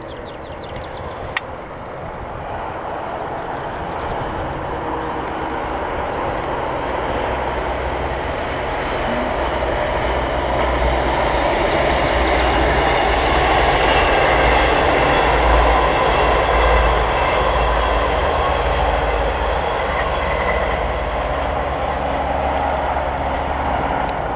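Class 221 Super Voyager diesel-electric multiple unit approaching and passing at speed: the low rumble of its underfloor diesel engines and the noise of its wheels on the rails grow steadily louder, peak a little past halfway, then stay loud.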